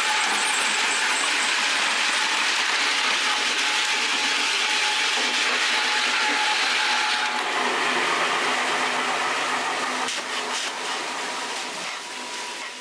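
Electric ice crusher grinding a block of ice into fine crushed ice, a steady loud grinding rush with a thin motor whine as the crushed ice pours out. About seven seconds in the grinding eases, then fades over the last few seconds as the block is used up.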